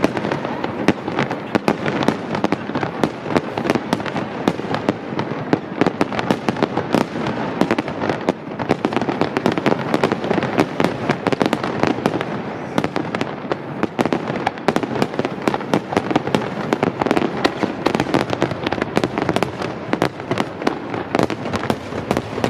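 Aerial fireworks bursting in a rapid, continuous barrage, many sharp reports a second overlapping one another.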